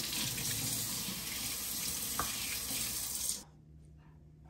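Kitchen faucet running, its stream of water splashing over tomatoes being rinsed by hand in a stainless steel sink; an even hiss that cuts off suddenly about three and a half seconds in, leaving quiet room tone.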